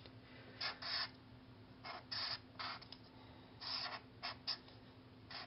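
Felt-tip permanent marker (Sharpie) drawing on paper: about nine short scratchy strokes, each a fraction of a second long, with pauses between them.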